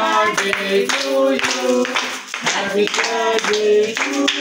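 Several people clapping in a steady beat along with a sung tune.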